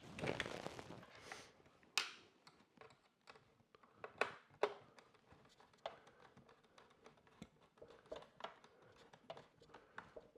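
Handling noises of small screws and a plastic camera mounting plate being worked by hand: a brief rustle at the start, then scattered small clicks and a few sharper knocks.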